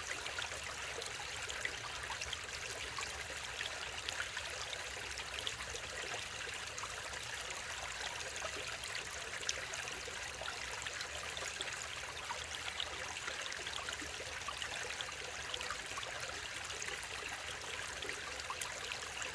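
Mountain valley stream flowing steadily, with many small splashes and trickles over the continuous rush of water.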